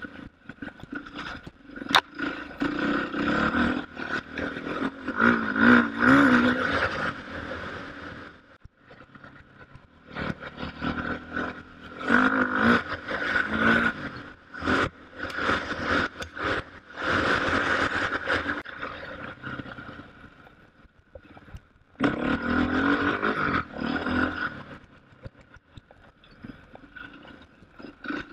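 KTM off-road motorcycle engine being ridden hard, revving up and down with the throttle in loud bursts, dropping back to a low run three times in between. A single sharp click comes about two seconds in.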